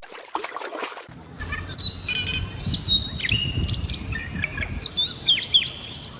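Bird chirping in quick, short whistled notes, some sliding in pitch, over a low steady rumble.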